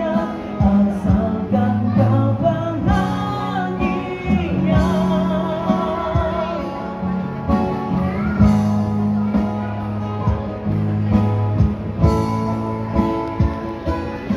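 Live pop ballad from a busking band: sung vocals with vibrato over electric guitar and steady held bass notes.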